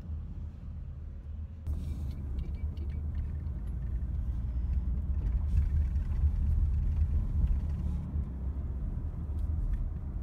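Low, steady rumble of a car driving along a road, its engine and tyre noise heard from inside the cabin, growing louder toward the middle.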